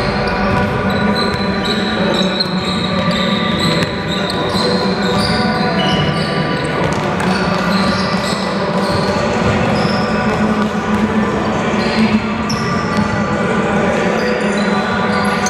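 A basketball bouncing and sneakers squeaking on a hardwood gym floor during a game, with short high squeaks throughout.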